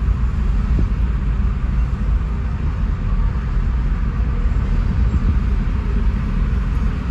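Freight train's covered hopper cars rolling past, a steady low rumble of wheels on rails heard from inside a car.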